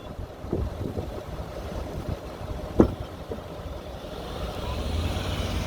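Off-road 4x4 SUV engine running at low revs, with one sharp knock a little under three seconds in and the engine sound building toward the end.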